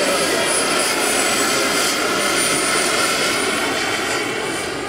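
Turbine-powered scale model of a Lama helicopter flying overhead: a steady, high-pitched turbine whine over the rotor noise, growing fainter near the end.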